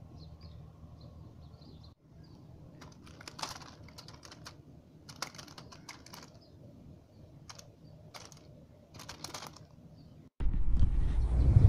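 Plastic carrier bag crinkling and rustling in irregular crackles. Near the end a loud low rumble cuts in suddenly.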